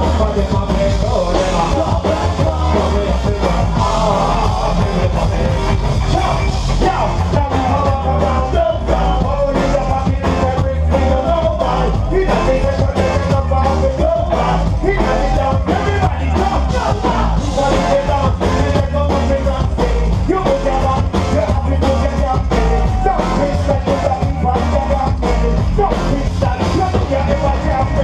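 Live band music from a PA, loud and dense, with heavy bass, a steady drum beat and a singer's vocals, in a ska and dub style.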